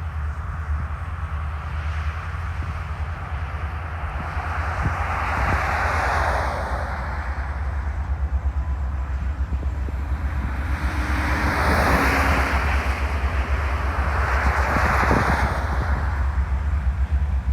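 Canadian Pacific freight train rolling past: a steady low rumble with the noise of the wheels on the rails swelling and fading several times.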